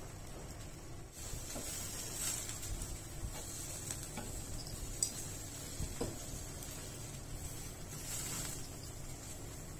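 Gas stove burner flame running with a steady low rush under a wire grill rack, with a faint sizzle from chicken gizzards roasting over it. A few sharp metal clicks, the loudest about five seconds in, as tongs turn the gizzards on the rack.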